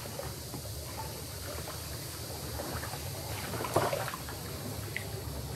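Canoe paddle dipping and splashing in the water alongside the canoe, with a louder splash a little under four seconds in, over a low steady rumble.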